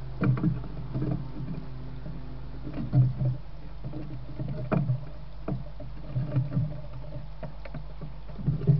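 Steady low electrical hum from a trail camera, with irregular soft knocks and rustles close to the microphone every second or two.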